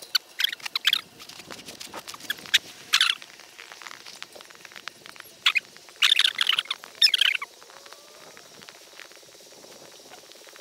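Snow crunching and scraping right against a low-mounted action camera, in irregular crackly bursts over the first seven or so seconds. Near the end this gives way to a faint steady hiss as it slides over the snow.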